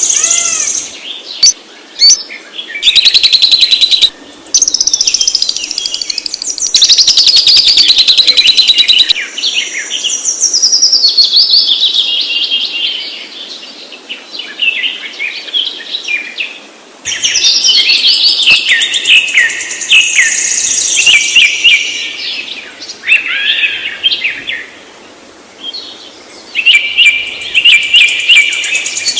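Several songbirds singing and chirping: strings of quick falling whistled notes and high chirps, broken by loud rapid trills a few seconds in.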